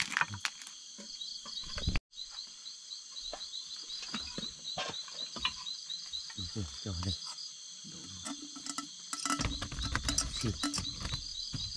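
Night insects chirping: a steady high drone with a short cricket-like chirp repeating about three times a second, with scattered clicks and knocks.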